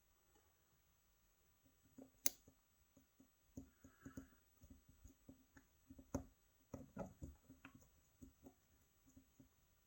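Faint, irregular clicking and tapping of a lock pick and tension wrench working the pins inside a Euro cylinder lock, with one sharper click a little over two seconds in.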